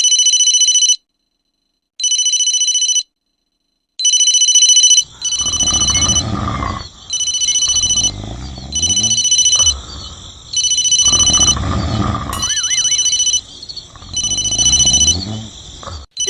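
An electronic ringing tone pulsing on and off about once a second, like a phone ringtone. From about five seconds in it is joined by a loud, growling roar, four times, each lasting a second or two.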